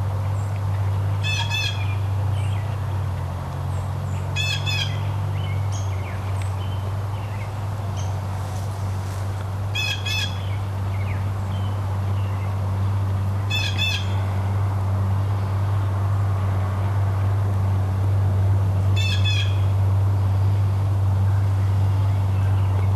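A songbird sings the same short, quick-noted phrase five times, a few seconds apart, over a steady low hum.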